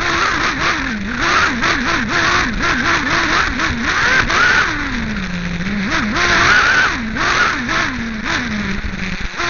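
The two-stroke nitro glow engine of a Team Associated RC8B 1/8-scale buggy, heard up close from on board. It revs up and down rapidly on the throttle, drops to a lower, steadier note around the middle and again near the end, with sharp knocks throughout.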